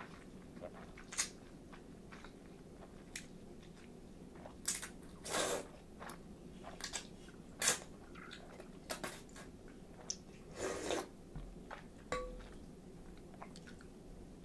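Close-miked slurping and chewing of chilled ramen noodles in short, irregular bursts, with a few longer slurps of about half a second. A light clink about twelve seconds in.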